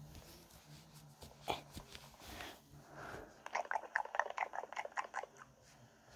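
Close-miked ASMR sounds from a fursuit wearer at a microphone, played back through a small handheld console's speaker: scattered clicks, then a fast run of crisp crackling clicks a little past halfway that lasts nearly two seconds.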